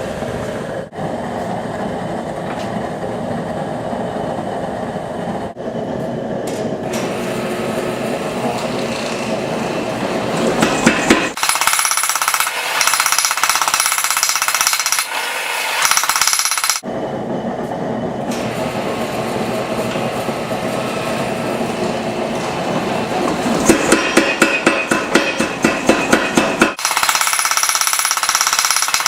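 Rapid hammer blows on hot steel, about four a second, in short runs, alternating with the steady roar of a propane forge as rebar is heated and worked.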